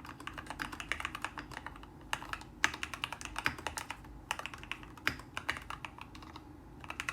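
Typing on a CiY Tester68 mechanical keyboard with lubed and filmed Gateron KS3 Yellow linear switches, PBT XDA keycaps and a tape and PE-foam mod: fast, continuous keystrokes with a few louder strokes mixed in, the loudest about two and a half seconds in.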